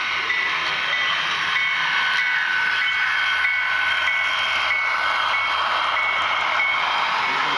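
HO scale model train rolling past close by, its diesel locomotives and a line of refrigerator cars giving a steady whir of wheels on track. A short high chirp repeats about twice a second.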